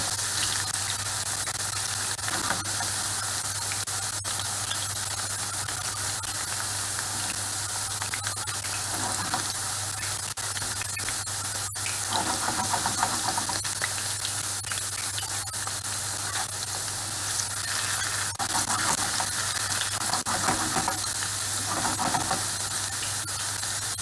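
Cubed potatoes sizzling steadily as they sauté in oil in a frying pan, with a spatula stirring and turning them a few times.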